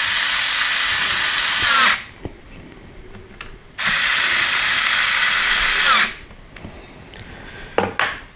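Small cordless power screwdriver running in two steady bursts of about two seconds each, its motor whine falling away as each stops. A few light clicks follow near the end.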